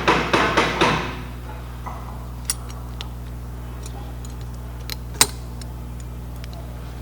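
Metal brake parts and tools clinking as they are handled: a quick run of clinks in the first second, then a few isolated sharp clicks, the loudest about five seconds in, over a steady low hum.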